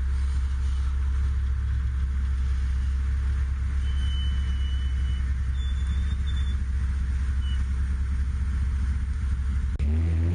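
Off-road vehicle engine running at a steady low idle. Near the end the sound changes abruptly to an engine revving up and down.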